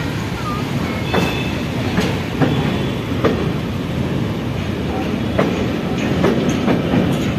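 Passenger train running over a steel railway bridge, heard from the moving coach: a steady rumble of wheels on rail, with clacks over the rail joints about once a second.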